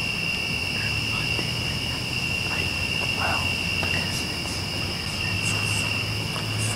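Crickets trilling in a steady, unbroken evening chorus on one high pitch, with a faint low hum underneath.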